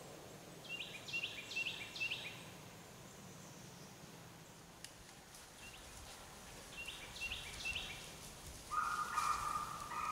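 Deer hounds baying on a drive: two long, drawn-out, even-pitched bays near the end. Two runs of short, high bird calls come earlier.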